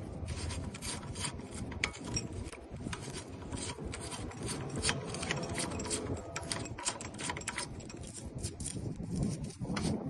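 Lock cylinder being worked on by hand during a rekey: rapid, irregular small clicks and scraping of metal parts and tools.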